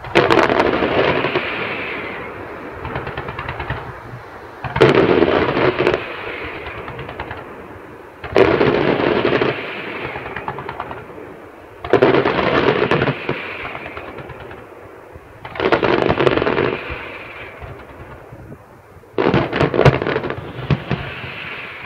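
Fireworks display: six bursts of rapid crackling, one about every three and a half seconds, each fading out over a second or two; the last, near the end, breaks into a string of separate sharp pops.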